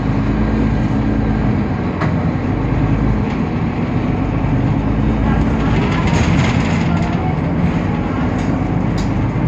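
Temsa Avenue LF city bus running, its DAF PR 228 diesel engine and ZF 6AP Ecolife automatic gearbox droning with a steady low hum whose pitch shifts several times, with a few light rattles and clicks in the second half.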